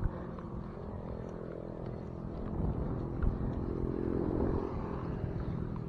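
Wind and road rumble on an action camera's microphone during a bicycle ride, with a motor engine swelling and fading about four seconds in.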